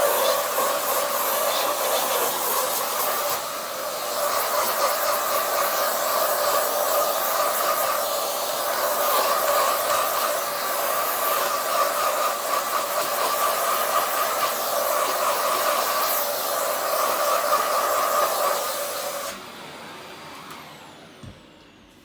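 Electric fan-driven blower, like a hot-air tool, running steadily with a whooshing hiss and a hum, then switched off about 19 seconds in and winding down.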